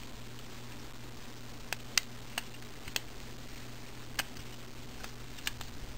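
Sharp, scattered plastic clicks and ticks from a small Transformers toy trailer as its parts are rotated and tabbed into place, over a steady low hum.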